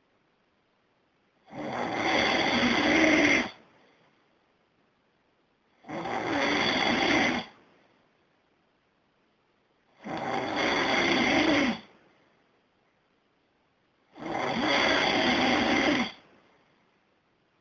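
A man snoring loudly in a slow, regular rhythm: four long snores, each about two seconds long, coming about every four seconds with quiet breaths between.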